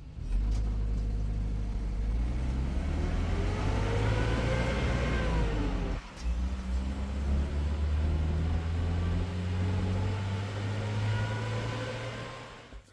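A motor vehicle's engine running under load, its pitch rising and then falling, over a heavy low rumble. It breaks off briefly about six seconds in, then runs on.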